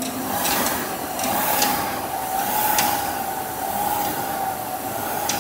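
Air-resistance ergometer flywheel whirring under steady pulls, its hum rising and dipping slightly with each stroke, with a few short rushes of noise.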